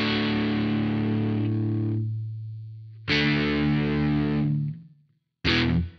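Chibson Les Paul replica electric guitar fitted with a plastic nut, played through overdrive. A distorted chord rings and fades over about two seconds, a second chord is struck about three seconds in and cut off short, and another brief chord starts near the end.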